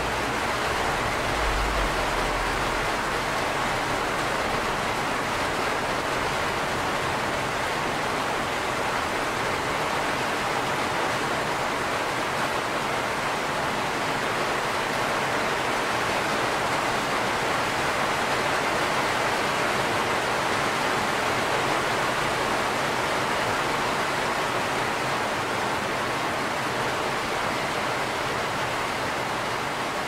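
Steady rain falling, an even hiss without separate drops standing out.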